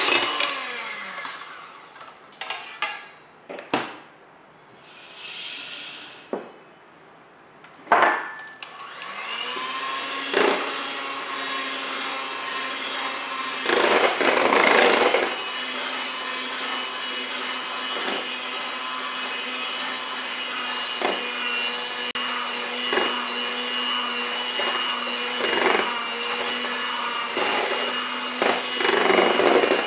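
A small electric kitchen appliance's motor winds down and stops in the first second or so, a few sharp knocks follow, then about nine seconds in it spins up again and runs steadily, with louder stretches around fourteen seconds and near the end.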